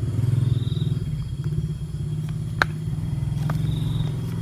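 A domestic cat purring steadily, very close to the microphone, as a low, rapid pulsing while it is stroked; one sharp click about two and a half seconds in.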